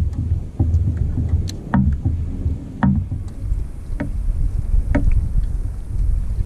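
Water lapping and slapping against the hull of a bass boat, a steady low rumble with about six sharp, irregular knocks spread through it, with some wind on the microphone.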